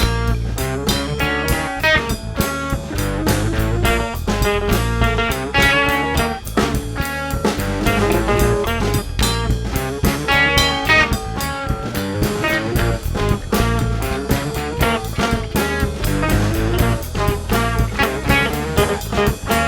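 A band playing an upbeat instrumental with guitar and a drum kit.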